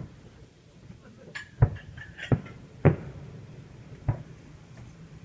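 Fireworks going off: about six sharp bangs at irregular intervals, each with a short echoing tail, the loudest about one and a half and three seconds in.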